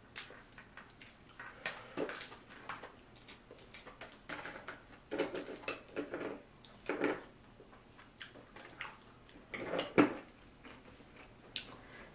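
Hands peeling and picking through boiled seafood: wet cracking and squelching of shells, with shells clicking against each other in a bowl. The sounds come in irregular bursts, the loudest a sharp crack about ten seconds in.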